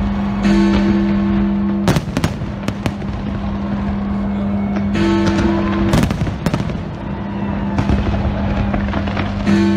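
Aerial fireworks bursting, with sharp bangs clustered about two seconds in and again about six seconds in, over music that holds a steady low note.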